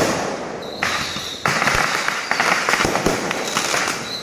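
Fireworks going off in dense crackling volleys of rapid bangs, with a fresh loud burst about a second and a half in.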